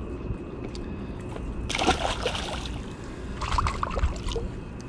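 Water splashing and sloshing at the shoreline in two short bursts, about two seconds in and again about three and a half seconds in, over a low steady rumble.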